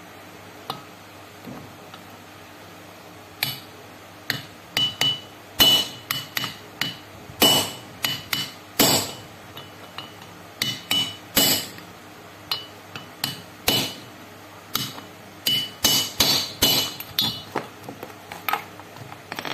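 Hammer tapping a socket used as a driver to seat a small camshaft bearing in a Yamaha FZ150i aluminium cylinder head: a few dozen sharp metallic taps in uneven groups, many with a short ringing note, as the bearing is driven home flush in its bore.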